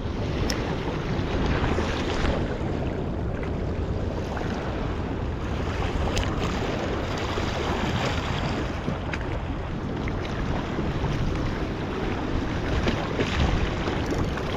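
Steady rushing noise of wind on the microphone and river water, with a faint click or two.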